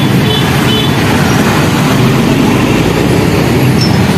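Busy road traffic passing close by: the steady engine and tyre noise of a box truck, motorcycles and motorized tricycles.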